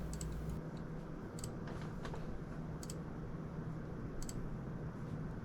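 Desktop PC running with a steady fan whir and low hum, with a light click about every second and a half.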